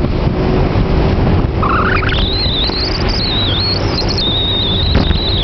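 Bass boat running at high speed over choppy water: steady rush of wind and water over the drone of the outboard engine, with a knock from the hull near the end. A high, wavering whistle rises about a second and a half in and carries on.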